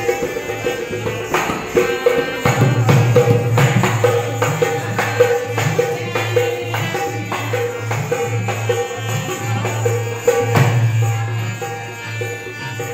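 Harmonium playing a melody over a held low drone, with hand percussion striking a steady beat.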